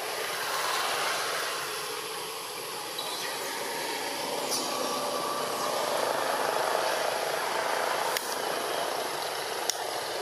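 Steady outdoor background noise with no clear single source, and a few short faint clicks about midway and near the end.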